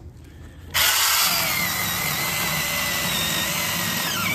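Cordless 8-inch ZEEKSAW mini chainsaw starting up suddenly less than a second in and cutting through an oak log. It runs steadily without slowing in the wood.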